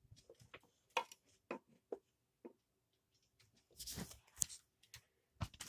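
Soft scattered clicks and taps, with a brief breathy hiss about four seconds in.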